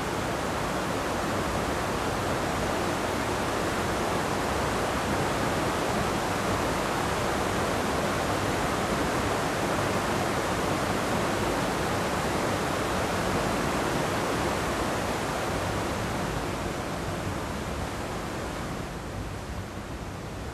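Steady rush of falling water from Amicalola Falls, a tall cascading waterfall, growing quieter near the end.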